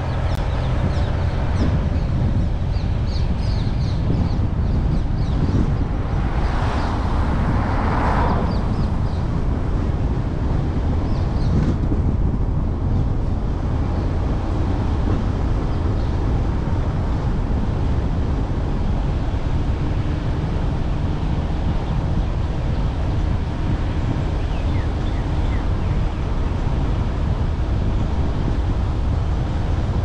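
A car driving along a road: a steady low rumble of tyres and engine with wind noise on the microphone. A brief swell of rushing noise comes about seven to eight seconds in.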